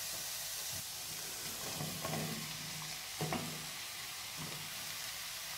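Spice masala sizzling steadily in a hot non-stick pan, with a few soft knocks about two and three seconds in as sliced button mushrooms are tipped in.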